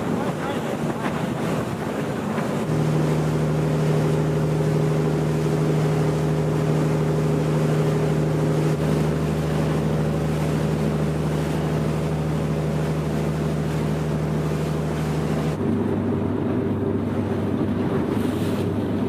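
Fishing boat's engine running steadily at cruising speed, with the rush of water and wind on the microphone. The engine note steps lower about three-quarters of the way through.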